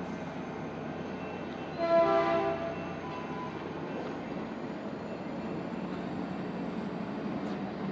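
Caltrain commuter train of bilevel gallery cars rolling past with a steady rumble of wheels on rail. About two seconds in comes a short horn blast, under a second long, with several tones sounding together.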